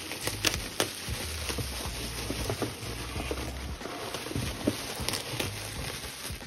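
Plastic bubble wrap rustling and crinkling as it is grabbed and pulled about inside a cardboard box, with scattered sharp crackles.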